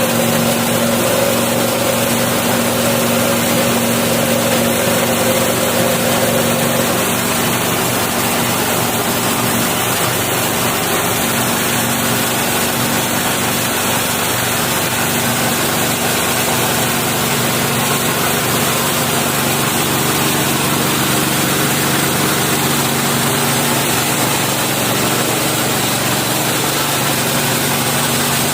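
KD-580S rice milling machine driven by its 7.5 HP engine, running steadily under load while it mills paddy, with a constant engine drone and a dense hiss from the grain and machinery.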